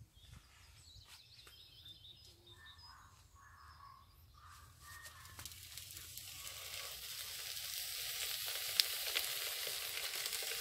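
Whole fish sizzling as it is laid on hot aluminium foil over a kettle grill; the sizzle starts about halfway through and grows louder, with a single sharp tick near the end.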